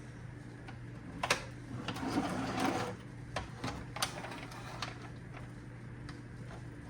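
Sharp clicks and a short stretch of scraping and rattling as plastic parts of a Roomba robot vacuum are handled and pried apart, over a steady low hum.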